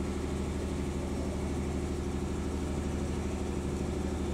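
Steady low hum of an engine running at idle, with a pitched drone and an even pulsing texture, unchanging throughout.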